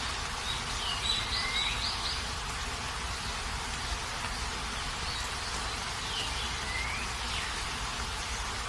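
Steady hiss of rain falling, with a bird calling in short swooping phrases twice, about a second in and again near the end.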